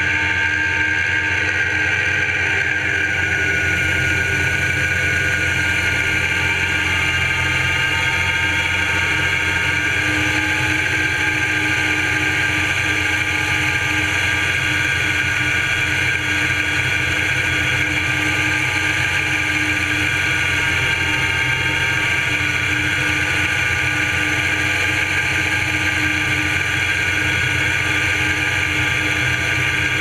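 Homemade band sawmill, driven by a 24 hp Kohler lawn-mower engine, running steadily under load as its new blade cuts through a dry locust board. A steady high whine sits over the engine note.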